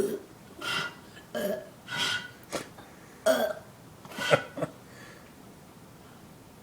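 A young boy burping over and over after drinking sweet apple cider: a quick string of about eight short burps over the first five seconds.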